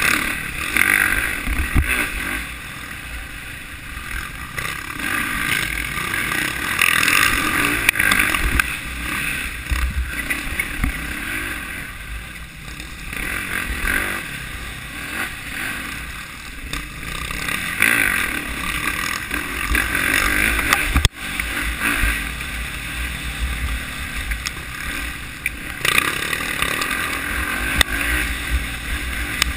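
Dirt bike engine heard from the rider's own bike, its revs rising and falling over and over as it is ridden along a rough trail, with a brief sharp dip in sound about two-thirds of the way through.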